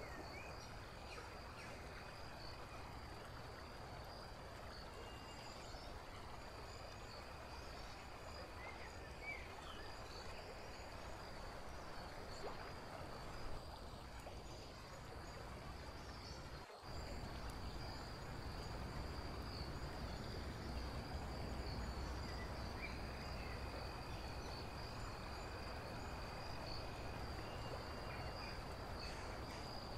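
Faint steady ambient background noise: a low rumble under a steady high-pitched whine, broken by a brief dropout a little past halfway, after which it is slightly louder.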